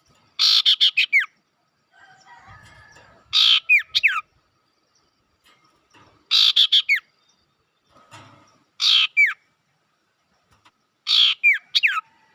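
Sirtu songbird calling five times, about every two and a half seconds. Each call is a rapid string of sharp, high notes that ends in a quick falling whistle.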